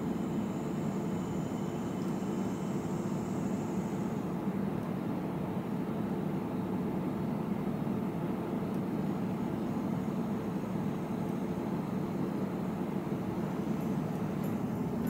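Steady low whir of a room heater running, with a faint thin high tone in the first few seconds and a few faint clicks near the end.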